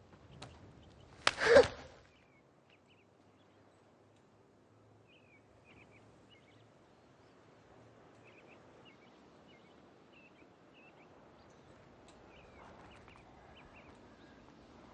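Faint, scattered high chirping, bird-like, in short bursts. About a second and a half in, a single brief loud burst stands out.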